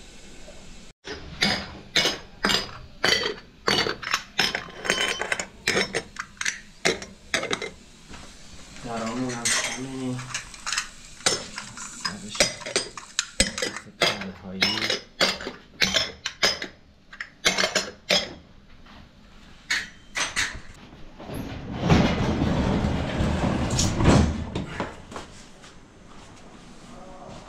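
Dishes, pots and metal cutlery clattering and clinking in a rapid, uneven run of knocks. Near the end the clatter gives way to a couple of seconds of louder rushing noise.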